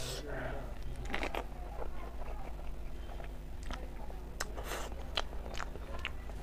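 Close-up chewing of a handful of rice and cooked greens, with scattered short mouth clicks.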